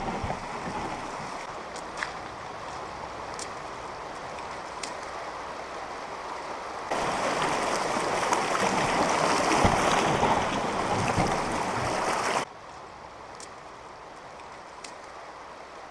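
Shallow river rapids rushing over rocks around a canoe being lined through by hand. The rush is louder for a stretch in the middle, then cuts off abruptly to quieter flowing water about twelve seconds in, with a few faint knocks along the way.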